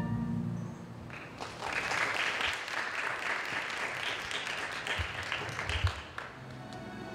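Audience applauding for about five seconds as the music ends, dying away as the next piece of music begins near the end.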